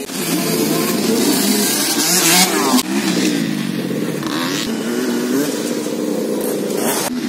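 Dirt bike engine revving, its pitch rising and falling again and again as the throttle is opened and closed.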